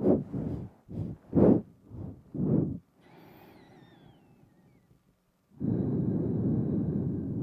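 Close-miked nose breathing into a binaural microphone: a quick run of about five short, sharp nasal puffs in the first three seconds. After a faint breathy hiss and a brief pause, one long steady exhale starts near the end.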